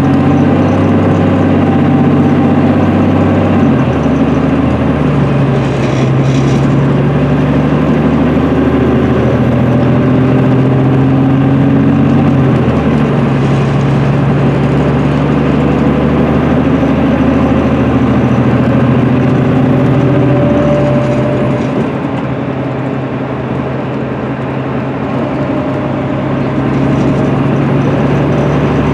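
Cummins ISM inline-six diesel of an MCI D4500CL coach, heard from inside the bus, pulling hard under acceleration. The engine note climbs and then drops abruptly three times, about four, thirteen and twenty-one seconds in, as the Allison automatic transmission shifts up, before settling to a steady cruise.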